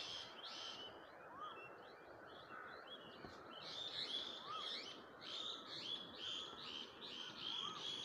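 Birds chirping: short high chirps repeating about twice a second, with a few softer whistled notes, over a faint steady hiss.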